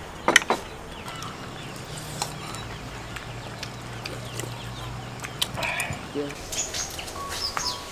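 Spoons and chopsticks clinking against bowls and a pan during a meal, over a low steady hum, with birds chirping near the end.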